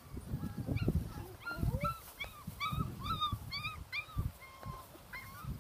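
Cavachon puppies whimpering and yipping: a quick run of short, high whines that rise and fall, about three or four a second, thickest in the middle.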